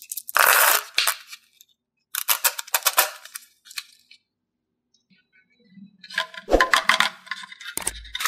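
Small hard-coated candies clicking and rattling as they are tipped between a palm and a thin plastic surprise-egg cup, in several short clusters of clicks, with handling of the plastic cup.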